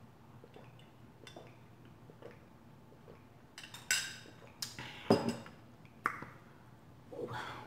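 Faint sipping through a metal straw, then a drinking glass with the straw in it clinking and knocking as it is lowered and set down on the table, several sharp clinks about four to five seconds in.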